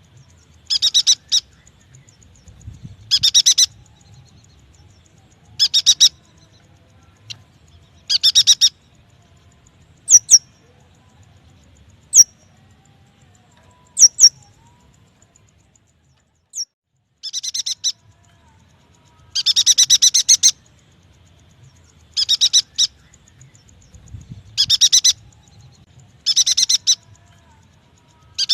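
Yuhina song used as a lure: short rapid chattering phrases repeated every two seconds or so, with a run of single sharp falling chip notes midway.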